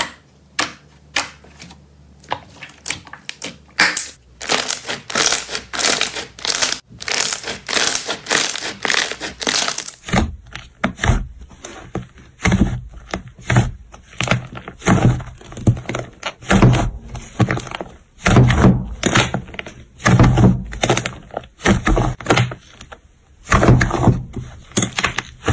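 Slime being pressed and poked by hand: sharp separate clicks at first, then dense crackling, and from about ten seconds in, crunchy squishes with deeper thuds.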